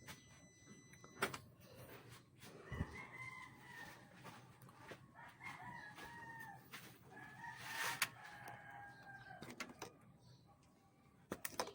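Rooster crowing, faint, with a few sharp clicks.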